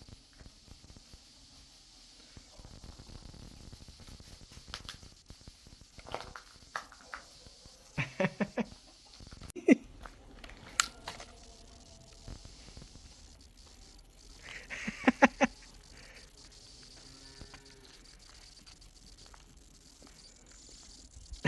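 Steady, very high-pitched electronic tone just under 16 kHz, the 'ultrasonic' repellent sound meant to scare dogs and pests. It cuts out about nine and a half seconds in and resumes about a second later, with a few faint brief noises underneath.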